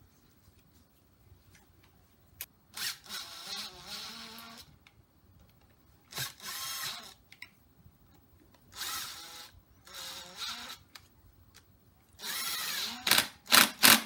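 Cordless impact driver spinning in valve cover bolts on a 6.0L LQ4 V8. It comes in five short bursts of whirring, each lasting about a second, with the motor's pitch wavering, and the last bursts near the end are the loudest.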